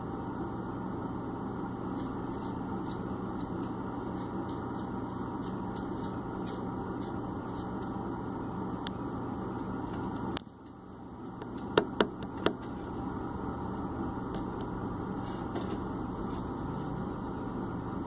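A steady low hum of background noise. About ten seconds in a sharp click sounds and the hum dips and slowly comes back, with three more sharp clicks over the next two seconds.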